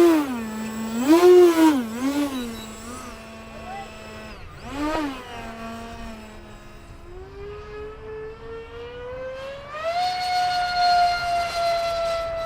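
Electric ducted fan of an RC SU-35 jet whining as the throttle is blipped up and down several times. About seven seconds in it spools up in a steady rising whine over about three seconds, then holds at a high pitch.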